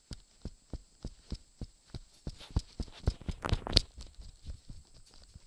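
A quick series of soft knocks and bumps, about four a second, from a handheld recording device being handled and moved about at close range. The knocks grow loudest and come thickest a little past halfway.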